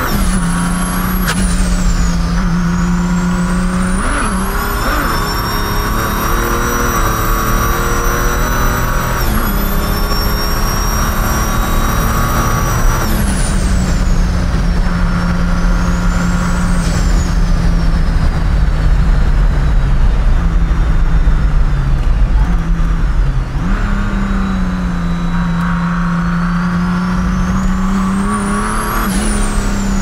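Big-turbo Mercedes W124 300TD OM606 straight-six diesel running 43 psi of boost, heard from inside the cabin while driving. The engine holds a steady drone. A high turbo whine rises in long glides and drops back several times as the throttle is worked.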